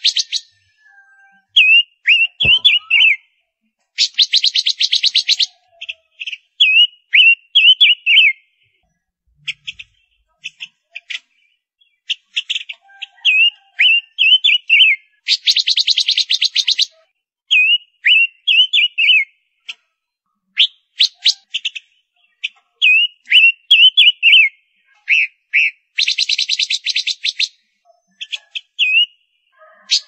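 Female silver-eared mesia calling: runs of short, quick whistled notes that hook upward, broken three times by a dry, rapid rattle lasting about a second and a half.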